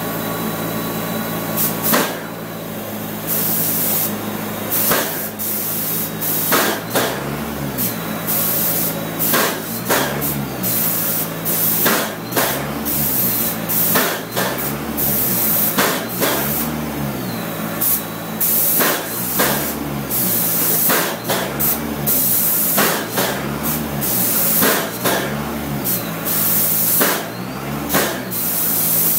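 Paint spray gun on an air hose hissing in repeated short bursts, one spray pass after another. Underneath, a low hum runs steadily, and from about a quarter of the way in a low rising-and-falling hum repeats about every two seconds.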